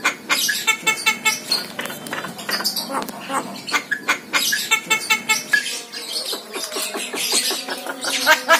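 Javan myna calling: a busy, continuous run of short clicks and short chattering notes.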